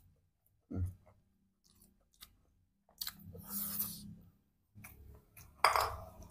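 Close-miked chewing of a big mouthful of rice and side dishes, with wet smacks and crunches coming in uneven bursts, the loudest near the end.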